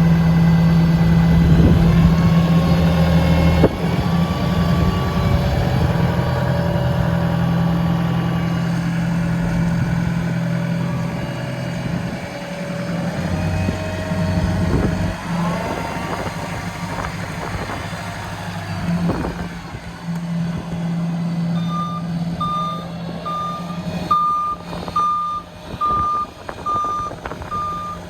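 Diesel engine of a Wirtgen W 35 Ri compact cold milling machine running, its note shifting and easing off partway through. About three-quarters in, a reversing alarm starts beeping steadily, a little under two beeps a second.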